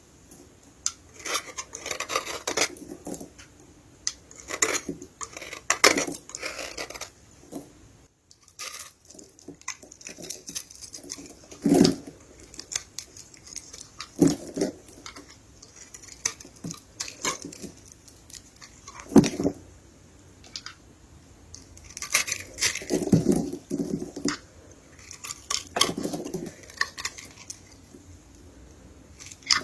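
Dry soap being crushed, crackling and crumbling in irregular bursts of crunches, with a brief pause about eight seconds in.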